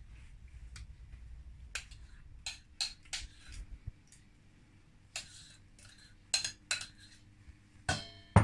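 A metal spoon scraping and clinking against a glass mixing bowl and ceramic tart dishes while scooping out pastry cream: a series of short scrapes and taps, with a ringing clink near the end.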